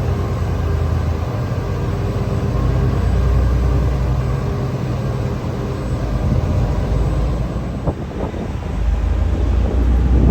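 Large diesel engine running steadily, a low drone with a hum over it, and a couple of short knocks about eight seconds in.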